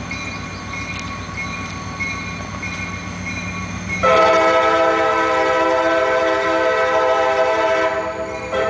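CSX diesel switcher locomotive's engine rumbling as it approaches. About four seconds in, its multi-note air horn sounds one long steady blast. A second short blast follows near the end.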